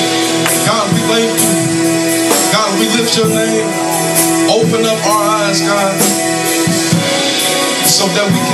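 Live church worship music: held keyboard chords with drums and cymbals keeping a beat, and a voice singing over it.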